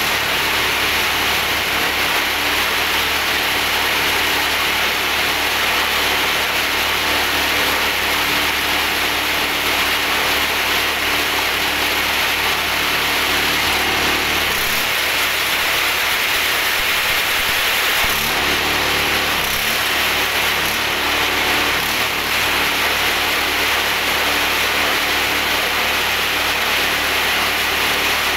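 Small stationary engine driving a drilling rig, running steadily at a constant speed, its lowest hum thinning for a few seconds in the middle.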